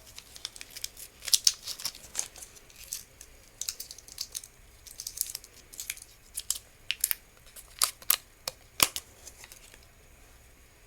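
Plastic candy wrapper being crinkled and torn open by hand to get at a grape Puchao chewy candy: a run of irregular sharp crackles that dies away near the end.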